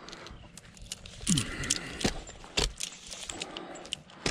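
Metal climbing and rigging hardware such as carabiners clinking and jangling in a string of sharp clicks and knocks, with one short falling squeak about a second in.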